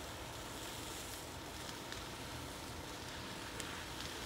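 Steady rushing noise of a burning building being hosed down with water, with a few faint cracks.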